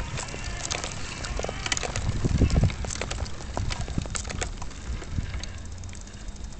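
Wheelchair rolling over brick paving, with a steady run of irregular clicks and clatter from its wheels, frame and camera mount shaking, over a low rumble. A louder rumbling bump comes about two and a half seconds in.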